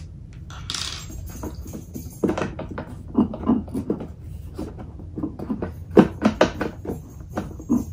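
Hands working the aluminium stand off the back of an Apple LED Cinema Display: a short scrape about a second in, then a run of small knocks and clicks.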